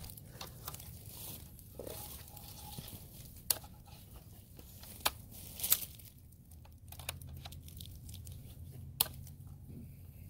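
Phone being handled and set down against clothing: rustling and scraping fabric, with several sharp clicks and knocks spread through.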